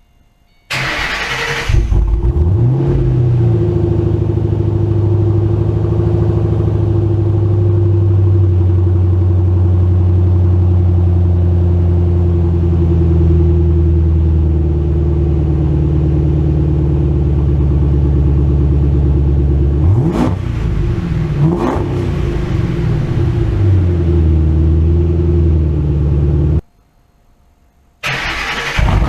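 Roush 427R Mustang V8 running through an aftermarket exhaust: it cranks and catches with a flare about a second in, then settles into a steady idle. Two quick blips of the throttle about 20 seconds in rise and fall in pitch. The sound cuts off suddenly, and a second start begins just before the end.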